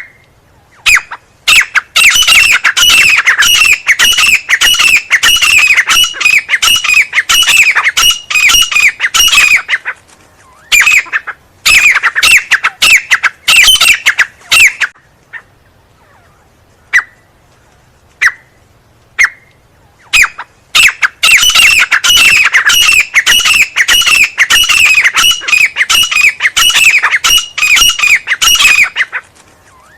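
Grey francolin (teetar) calling loudly. There are three long runs of fast, harsh repeated calls, with single calls scattered in the pauses between them.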